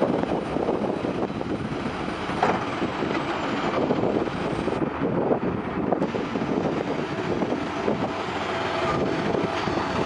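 Caterpillar 345CL excavator's diesel engine working hard as the machine hauls a bulldozer out of a ditch: a steady heavy rumble with a few knocks, and a faint steady whine joining near the end.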